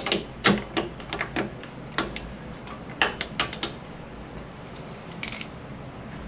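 Hand tools clinking and knocking against a motorcycle's front brake caliper in a quick, irregular run of sharp strikes over the first few seconds, with one short rasp about five seconds in.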